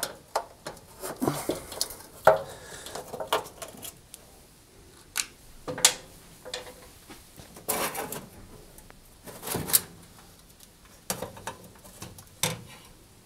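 Irregular metallic clinks, taps and knocks as a stubby screwdriver undoes screws under a cooker's metal control panel and the panel is then handled and lifted off.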